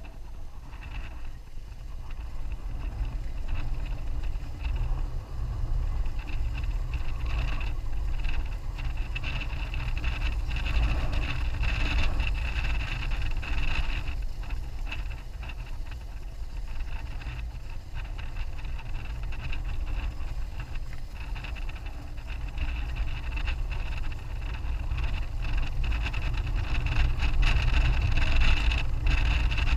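Onboard ride sound of a 2001 BMW F650GS Dakar: its single-cylinder engine running steadily under heavy wind buffeting on the camera microphone. The noise grows louder toward the end.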